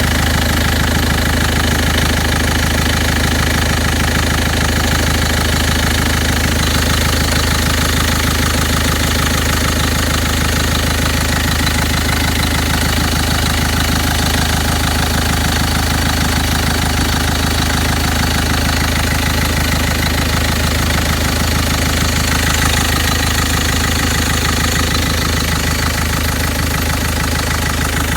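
Citroën C3 1.4 HDi four-cylinder diesel engine idling steadily. Its accessory belt vibrates and a strange noise persists even though the accessory belt kit has been replaced.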